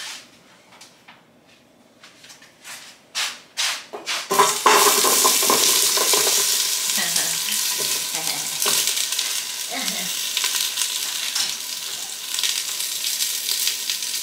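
Onions added to a hot pan of oil: a few light clicks, then a sudden loud sizzle about four seconds in that carries on as the onions fry, easing off slowly.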